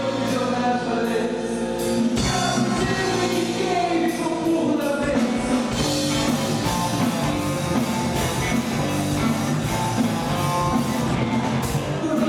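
Live rock band playing: a woman singing over drums, electric bass and electric guitar.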